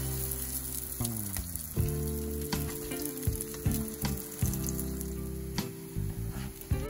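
Potato medallions frying in a pan, sizzling with frequent sharp crackles and pops, over sustained background music.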